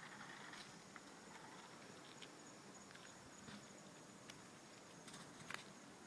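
Near silence: faint background hiss with a few scattered soft clicks, two of them close together about five and a half seconds in.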